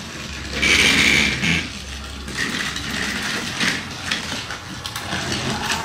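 Battery-powered Trackmaster toy train motor whirring, with a steady high whine that is loudest for about a second and a half near the start. Plastic toy trains click and rattle along plastic track.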